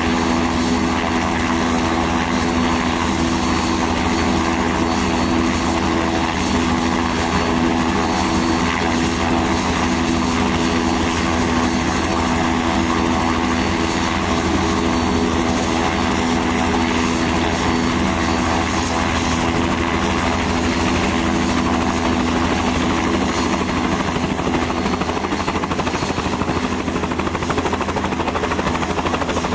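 Light turbine helicopter running on the ground with its main rotor turning, skids still on the pavement: a steady engine and rotor sound with several held tones that does not change.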